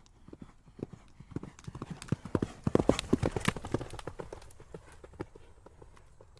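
A horse's hooves clip-clopping as it passes by, the hoofbeats growing louder to a peak about halfway through and then fading away.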